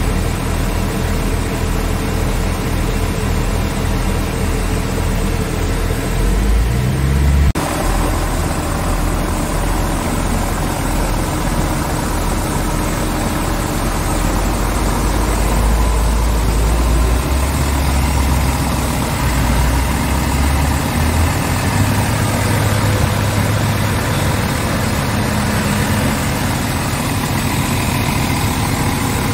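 Scania S tractor unit's diesel engine idling steadily with a low, even throb.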